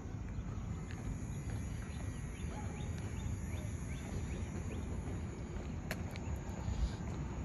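Outdoor evening ambience on a walk: a steady low rumble of wind and handling noise on the phone's microphone. Faint short bird chirps repeat through the middle, and a sharp click comes about six seconds in.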